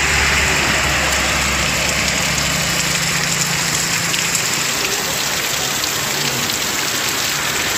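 Heavy rain falling steadily in a downpour, with a low steady engine hum underneath that fades out about halfway through.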